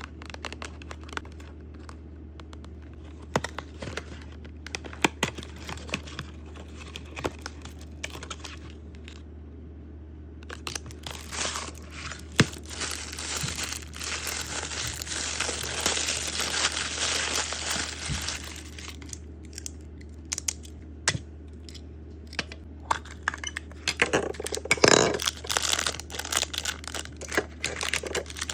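Toy packaging being handled, crinkled and torn open: scattered clicks and taps, a long crinkling tear lasting several seconds in the middle, and another loud burst of crinkling near the end.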